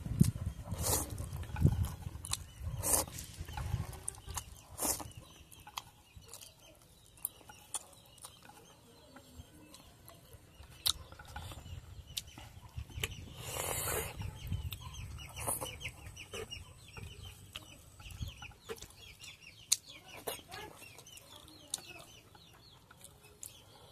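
Instant ramen noodles being slurped and chewed close to the microphone, with several loud slurps in the first few seconds and another about two-thirds of the way through. Chickens cluck in the background.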